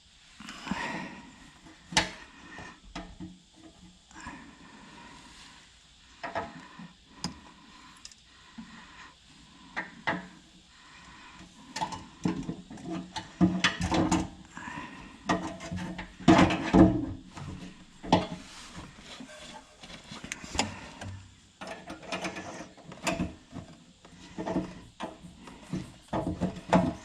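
Hand tools working on a Triumph TR7's fuel gauge sender unit in the petrol tank: irregular metal clicks, knocks and ratcheting, busiest past the middle.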